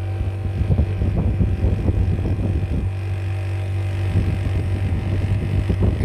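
Refrigerator compressor running on test, a steady hum with irregular rattling over it, as it pumps against a connected pressure gauge.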